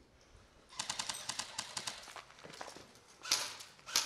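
Airsoft electric rifle firing a rapid full-auto burst of about a second, a fast run of sharp clicks. Two louder crunches follow near the end.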